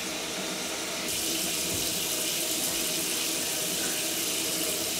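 Water running steadily from a single-lever mixer tap into a ceramic vessel basin and away down its open drain, as a newly plumbed sink is checked for leaks. The flow grows a little louder and hissier about a second in.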